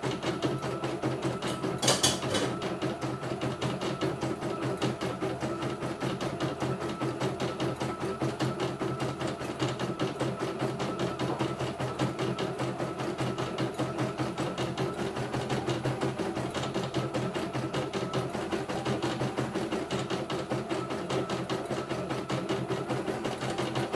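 CNY E900 computerized embroidery machine stitching a design: rapid, even needle strokes over a steady motor hum, with one sharper click about two seconds in.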